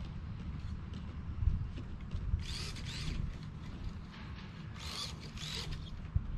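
Electric RC cars' motors whining in short bursts of throttle, about three times, over a steady low rumble.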